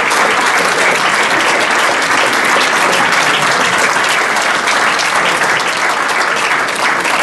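Audience applauding: the sustained clapping of a large seated crowd, easing slightly near the end.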